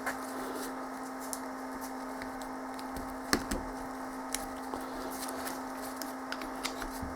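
Scattered light clicks and knocks of power steering pump parts and hand tools being handled, with one sharper knock about three seconds in, over a steady hum.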